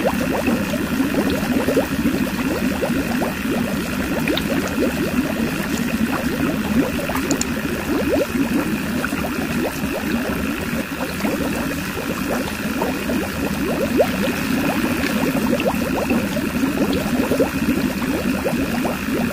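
Stream of water pouring from a small spout into a little concrete tank, splashing and gurgling steadily as the tank fills, over the steady high whine of the small DC motor driving the homemade pump.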